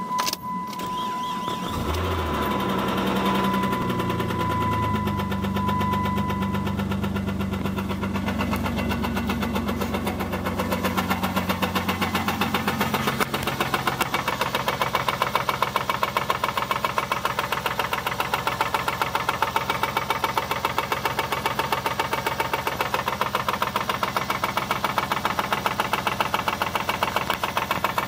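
2001 Chrysler Sebring's DOHC V6 is cranked and catches about two seconds in, then runs at idle. From about eleven seconds on a steady rhythmic knock stands out, the sign of a bad rod bearing.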